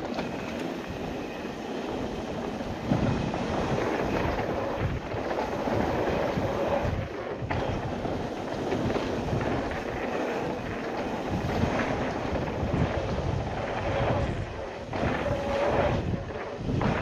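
Mountain bike riding fast down a dirt trail, heard from an action camera worn on the rider's body: wind buffeting the microphone over tyre roar and rattle, rising and falling, with a sharp knock about three seconds in.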